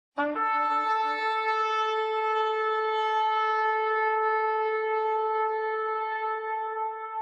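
Shofar blast: it starts suddenly on a brief lower note that breaks up into one long, steady held note, which begins to waver slightly near the end.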